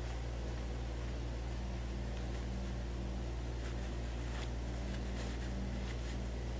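Steady low hum and even hiss of a running electric pedestal fan, with a few faint soft ticks of cloth being handled a little past the middle.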